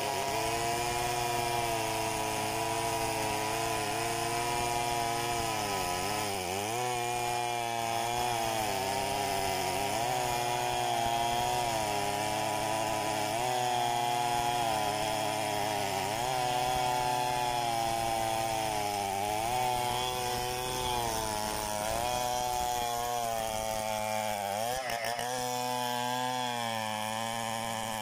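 Two Stihl 070 two-stroke chainsaws running near full throttle, freehand ripping a mahogany log lengthwise into planks. The engine note sags under load and recovers every few seconds as the bars are fed through the wood.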